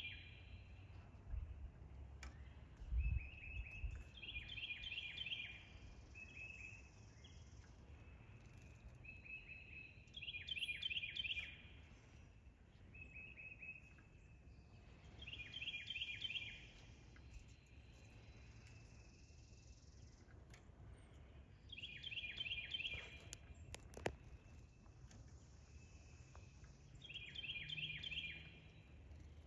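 A songbird repeating the same short song about every six seconds, each song a held note followed by a quick run of four or five notes, over a low background rumble.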